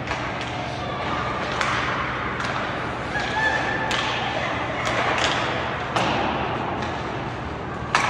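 Ice hockey play in a rink: sharp knocks of puck and sticks against the boards and ice come every second or so at uneven intervals over the rink's steady background noise. The loudest knock comes near the end.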